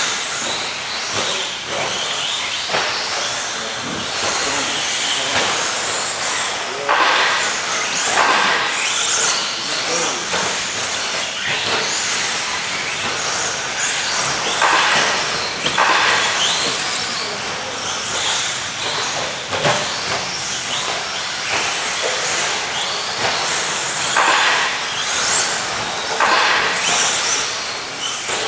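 Several electric 1/10-scale RC stadium trucks racing: their motors whine, rising and falling as they speed up and pass, over a continuous hiss of tyres on the track surface.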